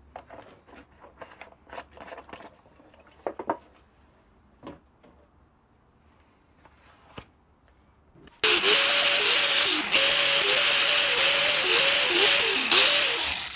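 Faint scattered clicks and knocks. About eight seconds in, a power tool spinning a wire brush wheel starts up loud, scratchy brushing over a motor whine that wavers in pitch as a threaded steel part is pressed against the wire, and it stops just before the end.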